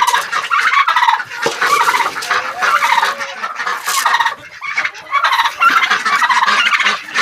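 A flock of domestic turkeys gobbling loudly, call after call overlapping, with brief lulls.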